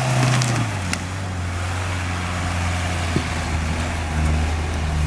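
Toyota Land Cruiser Prado 4WD's engine running at low revs as it crawls over a steep off-road slope. Its steady note drops a little in pitch about a second in, and there are a few light clicks.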